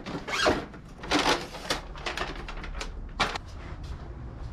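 Zipper of a nylon insulated delivery bag being pulled and the bag handled: a few short rasps over the first two seconds and one more about three seconds in.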